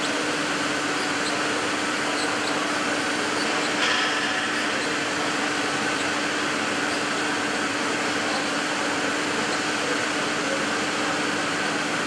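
Steady running noise of an aluminium high-voltage cable sheathing line, with its extrusion machine and caterpillar hauler at work: an even mechanical whir carrying a constant low hum and a fainter high whine. A brief knock sounds about four seconds in.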